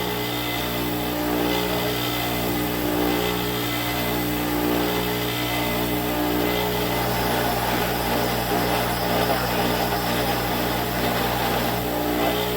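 Electric grinder running steadily as pieces of smelted iron bloom are spark tested on the wheel.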